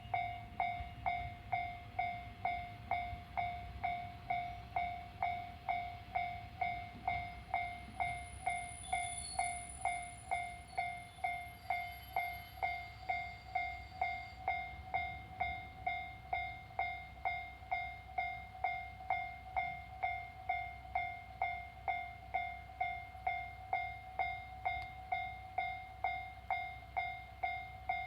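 Japanese railway level-crossing warning bell ringing a steady, evenly paced ding-ding at about two strikes a second, each strike a single clear pitch that fades quickly. A low rumble runs underneath.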